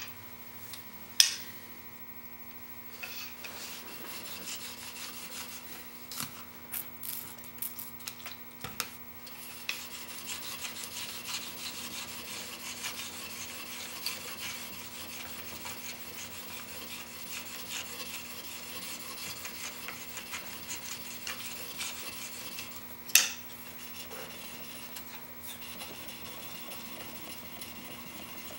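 Chisel clamped in a General sharpening jig being honed on an extra-fine DMT diamond stone. A few clicks as the jig is set on the plate, then a steady scraping rub of the steel bevel back and forth on the diamond surface, broken by one sharp knock late on. This is the final, extra-fine honing stage of the bevel.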